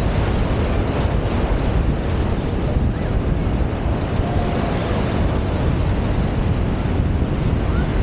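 Ocean surf breaking and washing up a sandy beach, a steady rushing wash, with wind buffeting the microphone and adding a low rumble.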